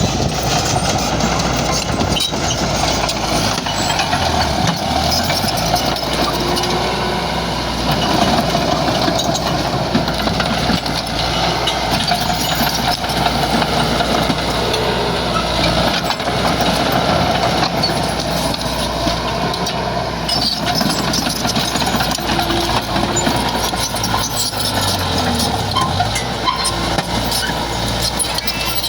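Bulldozer's diesel engine running steadily under work. Twice its low pitch briefly dips and comes back up: once about five seconds in and once near the end.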